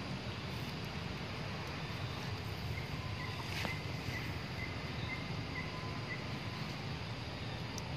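Steady low outdoor background noise, with a faint string of short high chirps repeating about three times a second through the middle, and a single faint click.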